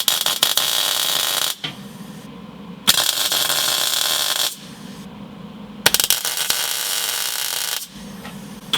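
Eastwood MIG 135 welder arc-welding a new floor pan into a 1967 Volkswagen Beetle: three welds, each a burst of about one and a half to two seconds, with short pauses between. The welder is set a little cold on these first welds.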